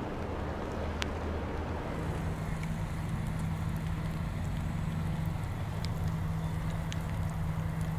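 Steady low drone of the cruise ship Explorer of the Seas' machinery, carried across the water. About two seconds in the drone changes to a steadier low hum.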